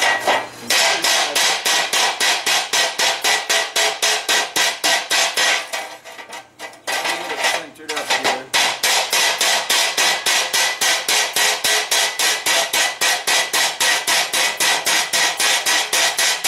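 Mallet beating a red-hot steel frying-pan blank into a bowl shape on a steel plate: fast, even strikes about four a second, each leaving a ringing metallic note. The blows stop for about two seconds around six seconds in, then carry on.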